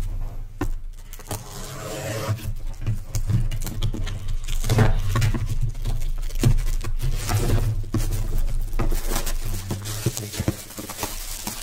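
A cardboard retail box being opened by hand and its inner tray pulled out: irregular rustling, scraping and small knocks of cardboard and plastic packaging.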